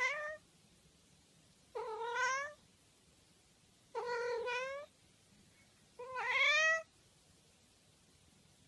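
A cat meowing: three drawn-out meows about two seconds apart, each rising slightly in pitch, after the end of one more right at the start.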